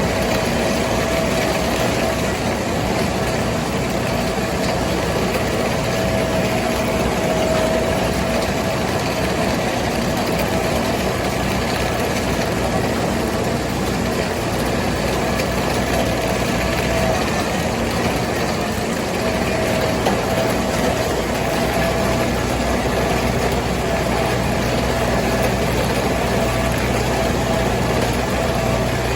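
Tractor engine running steadily at an even speed, with a steady whine over the engine note.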